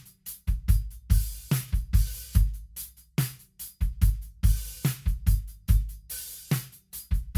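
Solo acoustic drum kit playing a steady groove of kick drum and snare with hi-hat and cymbal crashes, closing with a quick run of strokes near the end: a drums-only stem, no other instruments.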